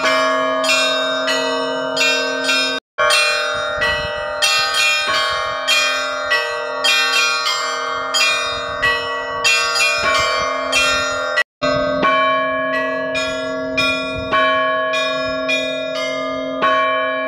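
Several church bells rung by hand with ropes in a festive Easter peal. The small bells are struck a few times a second in a lively rhythm over the lingering ring of a larger bell. The sound breaks off twice for a split second.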